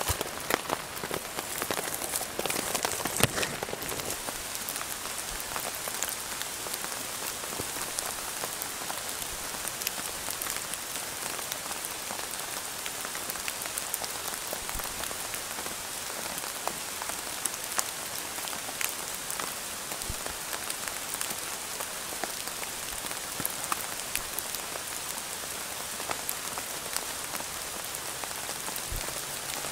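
Steady rain falling in the forest, a constant hiss with many small drop taps. There are a few sharper clicks in the first few seconds.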